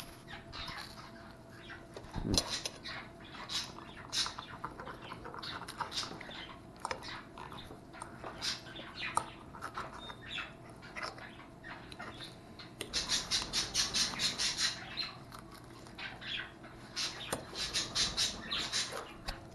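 Eating at a plate: a metal fork clicking and scraping on a ceramic plate and chewing, with scattered sharp clicks throughout. Two stretches of rapid crackly clicking come about two-thirds of the way in and again near the end.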